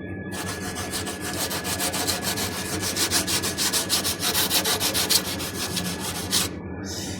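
Rapid, repeated hand scraping strokes, several a second, on the window AC's damaged coil during the repair, strongest in the middle and easing off briefly near the end.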